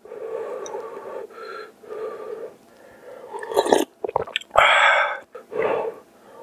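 Close-miked slurping of spicy instant ramen broth from a wooden spoon, with mouth clicks and breathing between sips. The loudest slurp comes about four and a half seconds in.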